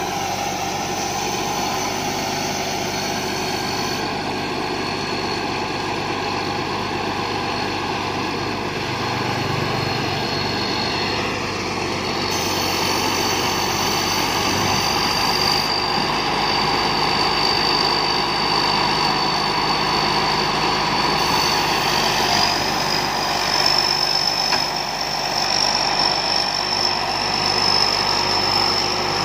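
Rice combine harvester's engine running steadily under load while it drives up onto a trailer, with a high steady whine that steps up in pitch about three quarters of the way in.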